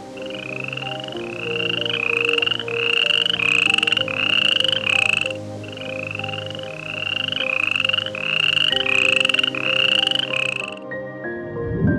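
A rapid run of short animal calls, about two a second, each rising slightly in pitch, in two series with a brief pause between them and stopping abruptly near the end. Sustained background-music tones play underneath.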